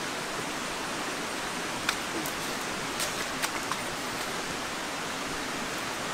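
Steady, even hiss of outdoor forest ambience, with a few sharp clicks: one about two seconds in and three more between three and four seconds in.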